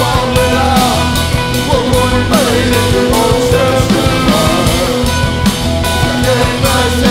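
Rock band playing: a male singer sings into a microphone over electric guitar, bass and drums.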